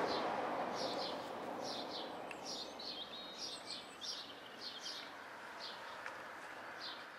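Small birds chirping repeatedly over a steady noise that slowly fades.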